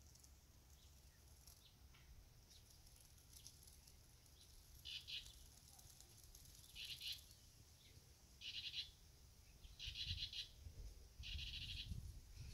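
A bird calling: five short, rasping calls about every second and a half, starting about five seconds in, over a low rumble.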